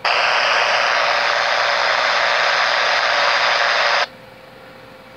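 Icom IC-T90A handheld radio's speaker hissing with loud static for about four seconds, starting and cutting off abruptly. This is the scan stopping on a channel, holding for its four-second pause, and moving on.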